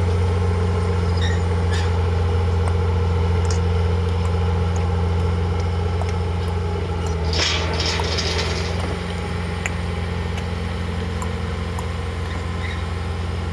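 Heavy diesel engine of a construction machine running steadily, with a brief hiss about seven seconds in.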